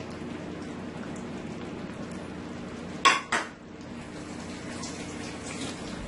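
Two sharp clinks of kitchenware on a stainless steel cooking pot, a quarter-second apart, about three seconds in, over a steady low hum.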